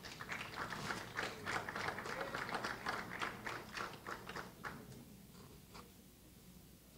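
Scattered applause from a small audience that tapers off about five seconds in, ending with a few last claps.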